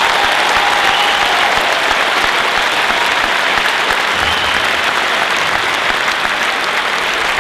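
Crowd applauding steadily after a rallying line in a political speech.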